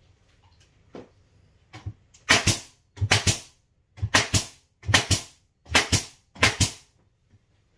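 Nail gun driving nails into a wooden trim board, six sharp shots about one a second from about two seconds in, each a quick double crack.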